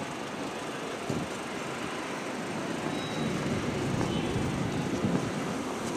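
City street traffic noise: the steady rumble of vehicle engines at a busy crossing, growing somewhat louder in the second half.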